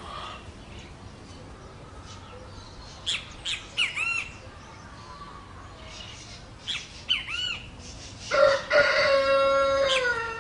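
Birds calling: a few short, arching chirps in twos, then one long, loud call lasting about a second and a half near the end that drops slightly in pitch as it finishes.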